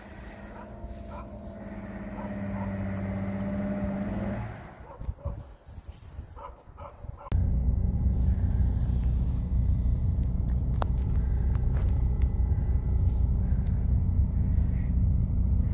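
A motor vehicle's engine growing louder for about four seconds, then fading. A few seconds later a loud, steady low rumble starts abruptly.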